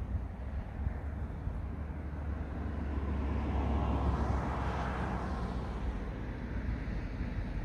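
A car driving past on the road, its tyre and engine noise swelling to a peak about halfway through and then fading away, over a steady low rumble.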